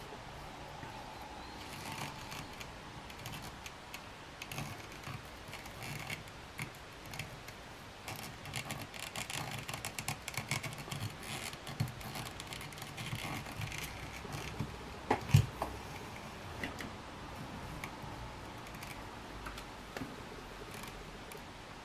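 Hand-stitching thin leather: rustling and small irregular clicks as thread is drawn through the leather and the work is handled, with one sharp louder knock about two-thirds of the way through.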